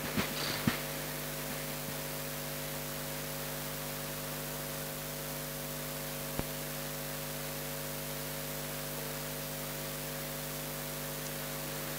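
Steady electrical mains hum over a layer of hiss, with a faint click about six seconds in.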